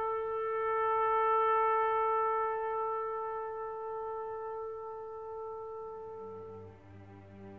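Background music: one long held note on a wind instrument, which stops about seven seconds in as low sustained tones come in underneath.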